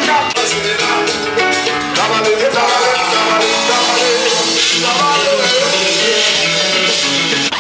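Background music: a song with a singing voice over guitar and drums.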